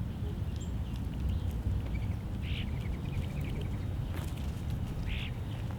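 Backyard birds giving short high chirps, two clearer ones about two and a half and five seconds in with a faint quick trill between, over a steady low rumble.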